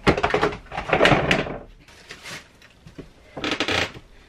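A clear plastic storage box lid unclipped with a sharp click and lifted off, followed by rustling and clattering as artificial autumn decorations inside are rummaged through; another short burst of rustling comes about three and a half seconds in.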